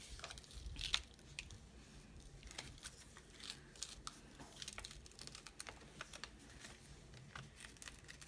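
Adhesive vinyl and transfer tape being peeled from their backing sheet by hand: faint crackling and tearing with scattered small clicks, and one louder snap about a second in.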